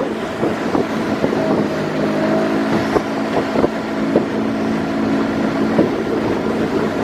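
Small boat's outboard motor running steadily under way, with wind buffeting the microphone and a few sharp knocks.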